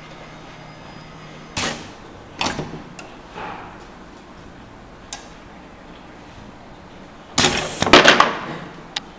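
Pneumatic cylinders of a Festo training station actuating: short hisses of compressed air with clunks and clicks as the cylinders stroke, several spaced over the first few seconds, then a louder, longer cluster of hissing and knocks about seven seconds in.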